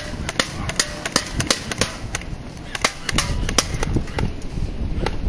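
Airsoft Thompson M1A1 submachine gun replica firing a string of rapid, irregular shots, several a second, each a sharp crack.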